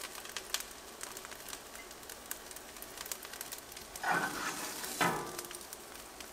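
Tofu scramble sizzling and crackling in a frying pan on low heat, with two louder scrapes as a spoon scoops it out of the pan about four and five seconds in.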